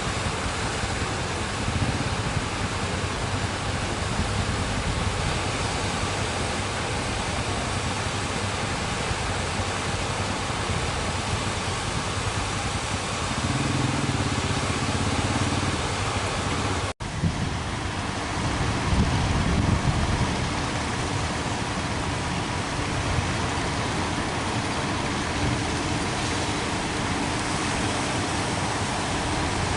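Steady rushing noise of surf at the shore, with a boat engine droning low for a few seconds just before halfway. The sound cuts out for an instant just past halfway, then the rush carries on.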